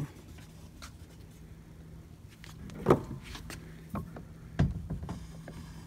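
Knocks and clunks from gear being handled in a plastic sit-on-top pedal kayak, two of them louder, about three and four and a half seconds in, over a faint steady low hum.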